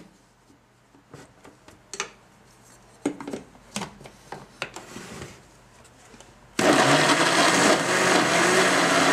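Plastic clicks and knocks as the lid is fitted and pressed onto a countertop blender's jug, then about two-thirds of the way through the blender switches on abruptly and runs steadily and loudly, blending a creamy sauce.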